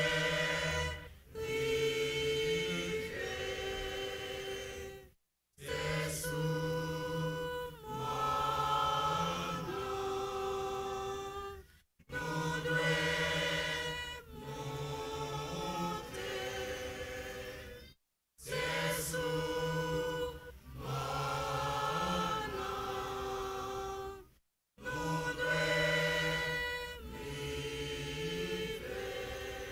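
Mixed church choir singing unaccompanied in parts, in repeated phrases of about six seconds. The singing cuts off abruptly to total silence four times, briefly each time, between phrases.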